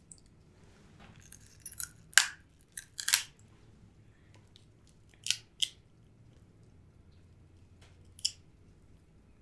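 Crab shells being cracked and snapped apart by hand: a string of sharp cracks, the loudest about two and three seconds in, with more near five seconds and one near the end.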